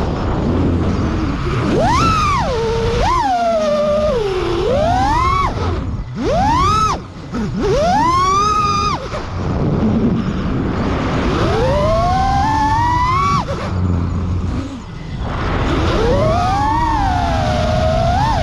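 FPV freestyle quadcopter's brushless motors and propellers whining, the pitch swooping sharply up and down over and over as the throttle is punched and eased, over a steady rush of noise. The sound drops briefly a couple of times.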